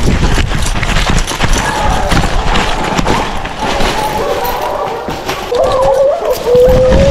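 Hunting hounds baying in drawn-out, wavering bawls, the longest held near the end, over heavy footfalls and the rustle of brush and dry leaves as someone runs through the woods.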